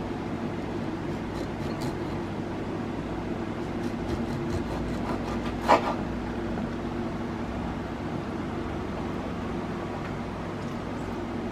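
Steady low hum of room noise, with a few light clicks and one short knock about six seconds in.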